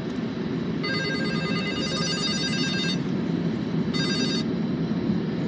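A phone ringtone ringing in bursts of about two seconds with short gaps between them, the last ring cut short about four and a half seconds in as the call is answered. Under it runs a steady low rumble from the passing freight train.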